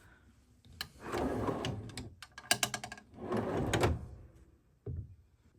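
Cabinet drawer on soft-close ball-bearing slides opened and pushed shut: two rolling slide runs with sharp clicks between them, then a single knock near the end.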